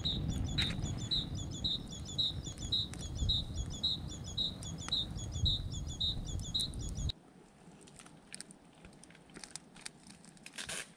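A small songbird repeating a short, high two-note call about twice a second over a low rumble. Both cut off abruptly about seven seconds in, leaving faint campfire crackles and one sharp snap near the end.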